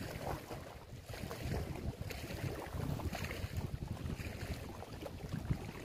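Wind buffeting the microphone with an uneven low rumble, over small choppy waves lapping against a rocky lake shore.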